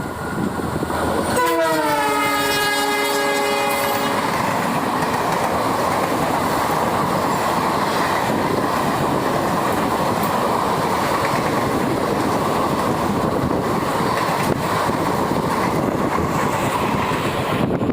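Indian Railways WDG-4 diesel locomotive sounding its horn for about three seconds as it passes, the pitch dropping as it goes by. This is followed by the steady rumble and clickety-clack of the express coaches running past on the curve.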